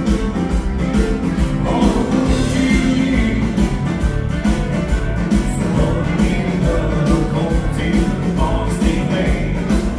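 Live dansband playing an upbeat rock'n'roll dance tune with drum kit, electric guitars and keyboards over a steady beat.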